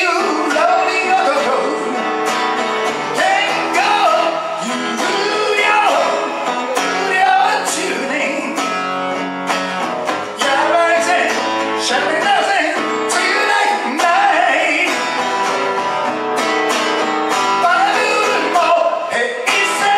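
A man singing a ballad while strumming his own acoustic guitar, a solo live performance.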